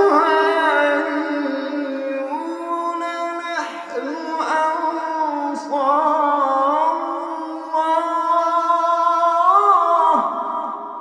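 A man's voice chanting Quran recitation in a melodic style, holding long, ornamented notes with reverb and short breaths between phrases. The phrase ends about ten seconds in, leaving a fading echo.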